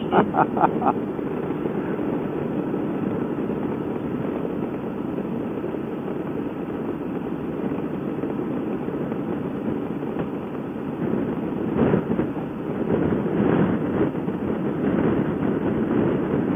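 Wind rushing over a helmet microphone on a moving motorcycle, with engine and road noise underneath, swelling a little in gusts late on.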